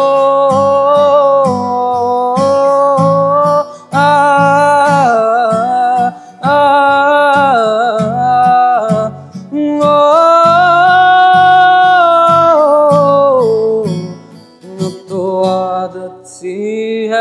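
A male singer holding long wordless 'aah' and 'oh' notes over acoustic guitar, in about four sustained phrases with short breaths between them.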